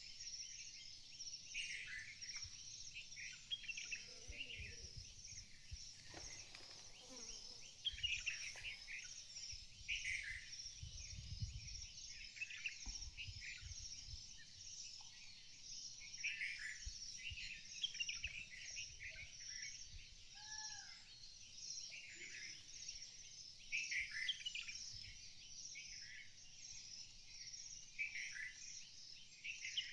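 Many small birds chirping and twittering together in a continuous chatter, with short falling calls every second or two.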